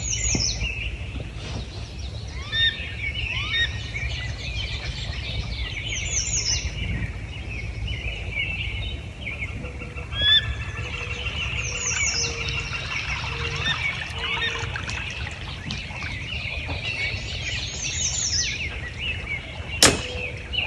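Several songbirds singing in spring woodland, one repeating a short phrase of high, downward-sliding notes about every six seconds over other chirping. A steady low rumble runs underneath, and there is one sharp click near the end.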